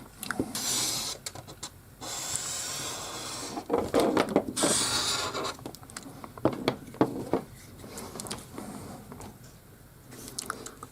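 Wooden boards scraping and rubbing as they are slid and handled, in irregular bursts with scattered knocks and clicks.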